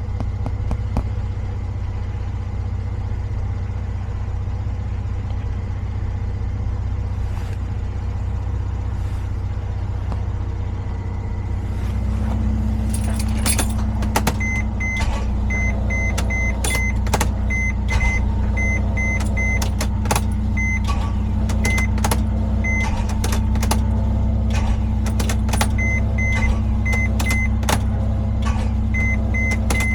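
Engine idling steadily, the car used to jump-start the van and hold its battery charge. About 12 seconds in a second steady hum joins, and from then on there are many sharp clicks and knocks along with a short electronic beep repeating at irregular intervals.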